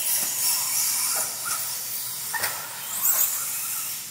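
Radio-controlled off-road buggies racing on a dirt track: a steady high-pitched hiss and whine from their electric motors and tyres, with one car's whine rising and falling about three seconds in.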